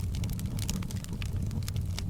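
Wood fire crackling in a fireplace: many small, irregular pops over a steady low rumble.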